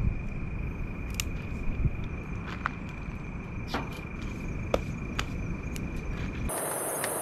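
Wood fire crackling in a portable steel fire pit, with scattered sharp pops, over a steady high insect trill. About six and a half seconds in, the sound changes abruptly to a high, steady hiss.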